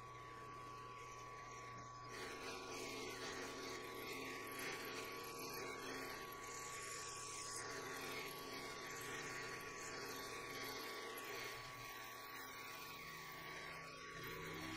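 Benchtop mill-drill running with a steady high whine from its spindle; about two seconds in, the end mill starts cutting into the metal block and a rougher, noisier cutting sound joins in and carries on.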